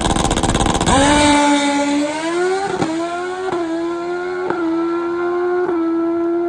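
Drag-racing motorcycle revving hard on the starting line, then launching about a second in and accelerating away down the strip. Its engine note climbs, broken by four quick gear shifts about a second apart, on a nice clean run.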